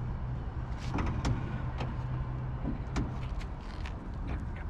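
Steady low hum of running machinery, with several short, sharp clicks and knocks over it.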